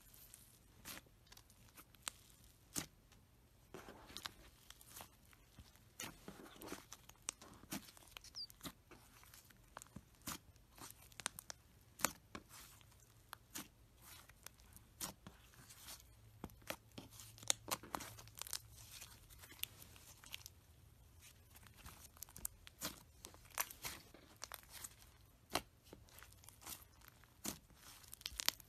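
Slime being pressed, squeezed and stretched by hand, making many small, irregular sticky pops and crackles.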